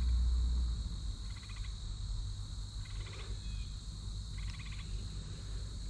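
Pond-side chorus of insects and frogs: a steady high buzz, with a short pulsed trill repeating about every one and a half seconds. A low rumble dies away within the first second.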